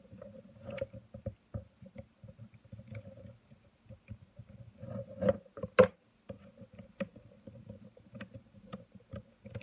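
Small clicks and taps of fingers handling a Nikon 18-55mm zoom lens and pressing the retainer clip into its rear mount, with the sharpest click just before six seconds in. A faint steady hum lies underneath.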